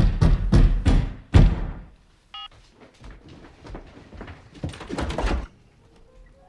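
Phone keypad buttons pressed in a quick run of clunks, about three a second, as a pager number is dialled, stopping after about a second and a half. A short electronic beep follows, then a few more scattered clunks.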